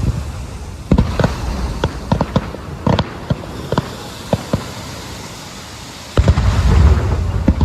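Aerial fireworks going off: a scattered run of sharp bangs and pops, then a louder cluster of deep booms about six seconds in.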